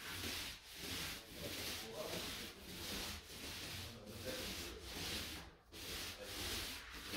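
Paint roller soaked with wet interior paint rolling back and forth across a wall, a rubbing hiss with each stroke, about two strokes a second.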